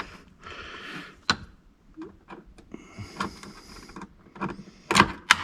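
Hands working wire terminals and hardware at a boat's negative bus bar: rustling and scraping with a few sharp clicks, the loudest near the end.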